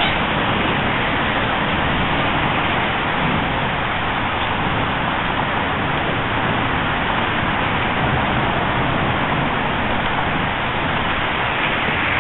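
Steady traffic noise from a highway bridge: a continuous even hiss with no single vehicle standing out.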